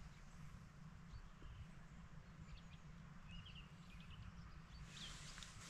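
Near silence: a faint low wind rumble with a few faint bird chirps about three and a half seconds in.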